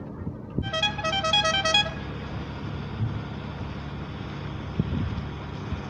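A quick run of about seven short horn-like notes, stepping up and down in pitch over about a second. It gives way to a steady low hum with wind noise.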